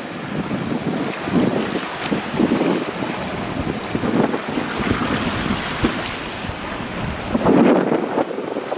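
Wind buffeting the microphone in irregular gusts over a steady rushing hiss from a jetfoil high-speed ferry running at speed and throwing spray.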